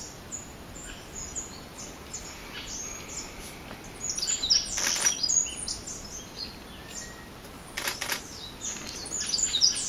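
Small forest birds chirping: short, high calls in scattered clusters, busiest about four to five seconds in and again near the end, with a couple of brief broader rustling sounds between them.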